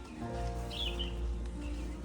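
Background music of long held notes over a deep, steady low drone, with a bird chirping briefly a little under a second in.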